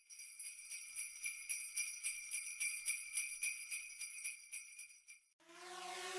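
Sleigh bells shaken in a steady rhythm, their high jingling cutting off sharply about five seconds in. A different steady pitched sound then swells in near the end.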